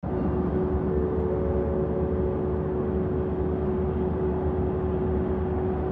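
Steady road and engine noise inside the cabin of a moving car, an even low rumble with a faint steady hum.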